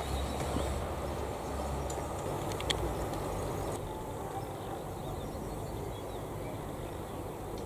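Steady outdoor background noise with a low rumble, a brief high chirp about 2.7 seconds in, turning slightly quieter and duller about four seconds in.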